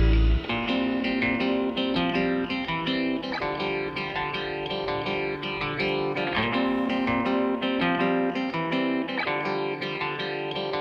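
Background music of quick, plucked notes.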